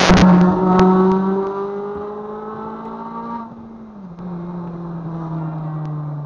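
Honda Civic Si K20Z3 four-cylinder engine, breathing through a bored J35 throttle body, RBC intake manifold and cold air intake, taken to wide-open throttle. A sudden loud burst of intake noise comes as the throttle opens, then the revs climb steadily for about three and a half seconds. The intake noise then cuts off and the revs drop and keep falling.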